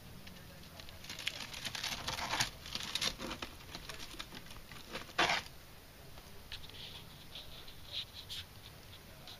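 Crackly rustling of fern fronds being pushed aside by hand: a dense run in the first few seconds, one louder short rustle about five seconds in, then a few light clicks.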